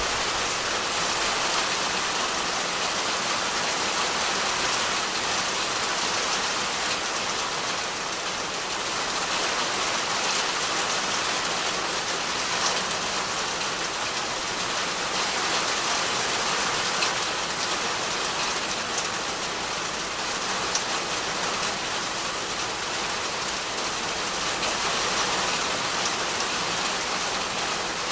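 Steady rain falling on dense tree and shrub foliage: an even hiss with scattered louder drop ticks.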